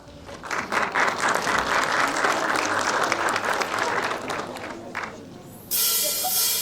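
Audience applauding, many claps blending together, dying down after about five seconds. A steady hiss comes in near the end.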